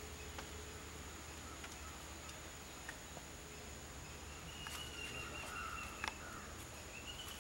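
Outdoor ambience dominated by a steady, high-pitched insect drone, with a few faint scattered clicks and a short, flat whistled call about five seconds in.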